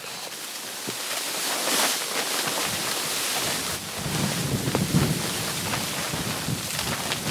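Wind buffeting the microphone, with a low rumble that comes in about two and a half seconds in and is strongest around the middle, over the rustle of plastic sheeting.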